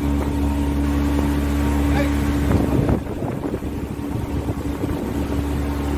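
Tour boat's motor running with a steady low hum, heard from on board. A little before halfway the hum drops and weakens for a couple of seconds, then picks up again near the end.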